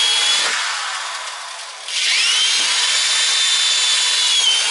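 Corded electric drill running at speed against pine tongue-and-groove ceiling boards. It stops about half a second in, then spins up again with a rising whine about two seconds in and runs on steadily, dipping briefly near the end.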